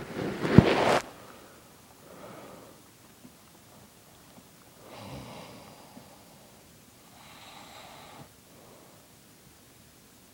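A sleeping person snoring: a loud snort in the first second, then three quieter snoring breaths about every two and a half to three seconds.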